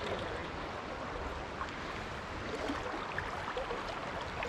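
Steady rush of river current flowing past close to the microphone.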